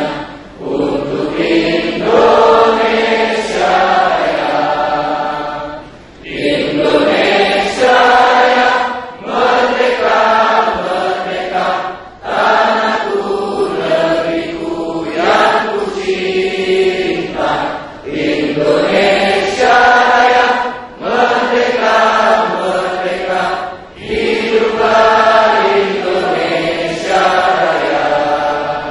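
Many voices singing together in unison, in phrases about two seconds long with brief breaks between them.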